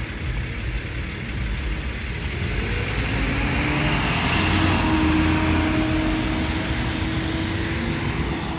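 Road traffic: a motor vehicle drives past, its tyre and engine noise swelling to a peak about halfway through and easing off, with a steady engine hum in the second half.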